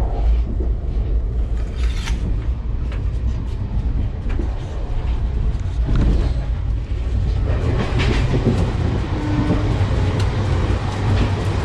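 Moving passenger train heard from inside the carriage: a steady low rumble with scattered rattles and clicks from the wheels and coach fittings.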